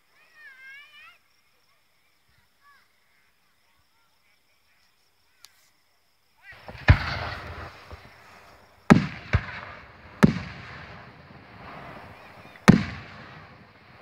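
Aerial firework shells bursting: after a few quiet seconds, five sharp booms come in the second half, two of them in quick succession, each trailing off in a long echo.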